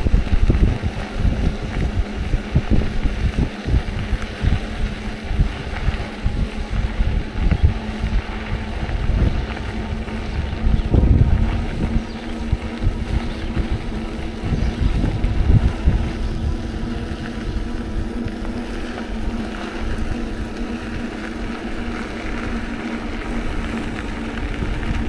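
Wind buffeting the microphone of a camera carried on a moving bicycle, a gusty low rumble, over a steady low hum.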